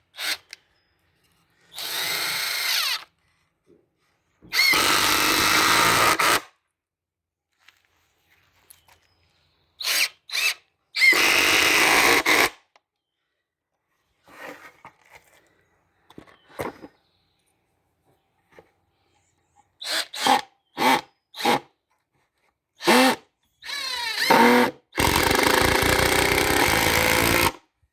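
Ryobi One+ cordless power tools running in a series of separate bursts, some short and some lasting a couple of seconds, several with the motor pitch rising as the trigger is squeezed. These are tools worked into wood during a small build.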